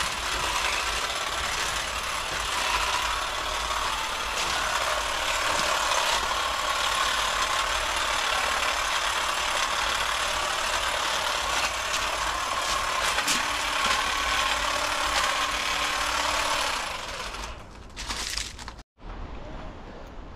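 Pole hedge trimmer running steadily as its blades cut through shrubs, a continuous mechanical chatter that stops about 17 seconds in.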